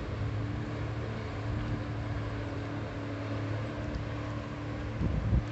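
Jet ski engine running with a steady droning hum as it crosses open water. A couple of brief low buffets of wind on the microphone come near the end.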